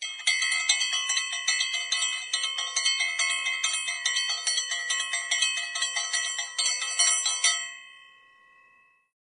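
A bell rung rapidly and repeatedly for about seven and a half seconds, then left to ring out and fade.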